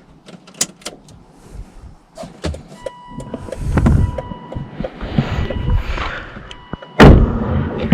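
Volvo XC90 turn-signal ticking with the left indicator on, heard as a run of sharp clicks. A faint steady tone sounds from about three seconds in, and there is a loud rustle or thump about seven seconds in.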